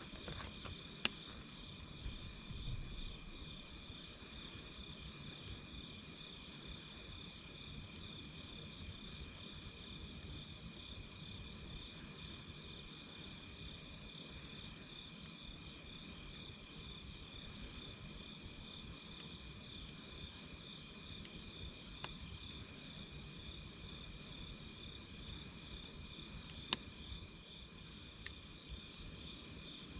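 Campfire crackling, with a few sharp pops about a second in and several near the end, over a steady high chorus of insects chirping.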